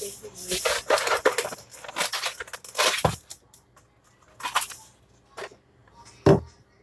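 Crinkling and rustling as food or packaging is handled at a kitchen counter, followed by a few light knocks and one heavier thump near the end as something is set down.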